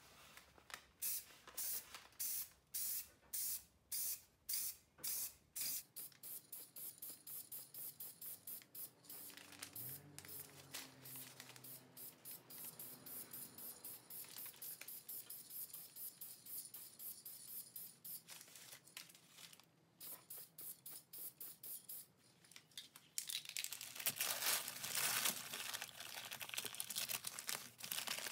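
Aerosol spray paint can hissing in short repeated bursts, about two a second at first and then quicker, as a shovel blade is painted. Near the end, newspaper masking crinkles and tears as it is pulled off.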